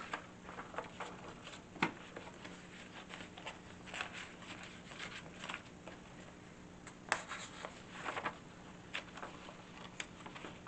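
Paper rustling as the pages, flaps and fold-outs of a handmade paper journal are handled and turned, with scattered soft clicks and taps, over a faint steady hum.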